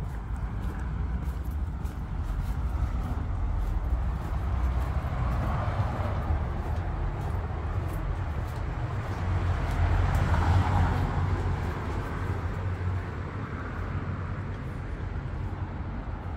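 Street traffic over a steady low rumble: passing vehicles swell and fade, the loudest about ten seconds in.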